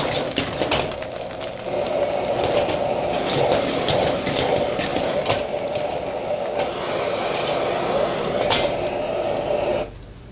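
Turnip cake slices sizzling in hot oil in a carbon steel wok over a running gas wok burner, with scattered clicks and scrapes as the wok is shaken and tossed. The noise drops off sharply near the end.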